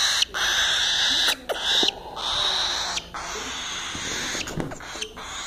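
Cockatiel hissing: long, noisy hisses of about a second each, with short breaks between them.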